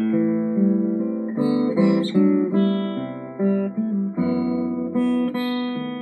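A restored 1907 Martin 00 acoustic guitar, mahogany back and sides with a spruce top, played as a run of chords. New chords are struck every half second to a second and ring on between strikes.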